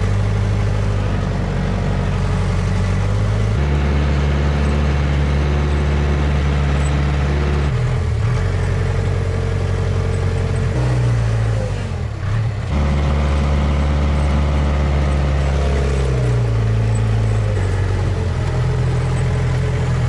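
Engine of an old backhoe loader running steadily, heard from the operator's seat as the machine drives through deep snow. Its pitch steps down and back up several times, with a short drop in level about twelve seconds in.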